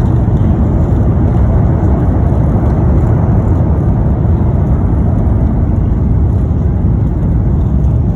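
Steady low roar of an Airbus A350-900's Rolls-Royce Trent XWB jet engines during takeoff.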